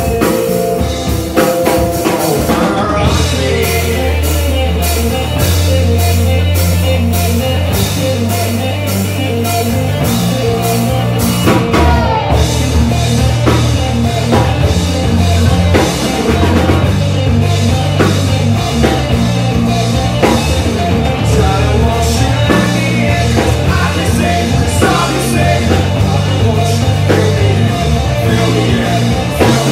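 Rock band playing live: electric guitars, bass and a drum kit with steady drum hits. The playing is sparser at first and the full band comes in about two and a half seconds in.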